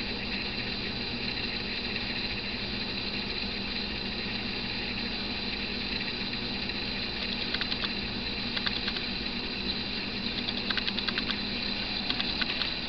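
A steady hum with a few fixed tones. From a little past halfway, short bursts of light, rapid clicking come and go.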